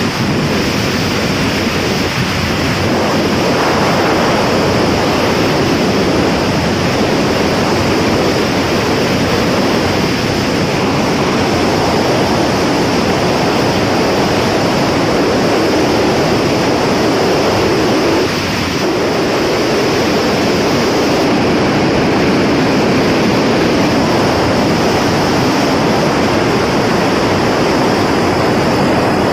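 Steady, loud wind rushing over the microphone of a Bajaj Pulsar 150 motorcycle held at its top speed of about 100 to 110 km/h, drowning out most of the engine.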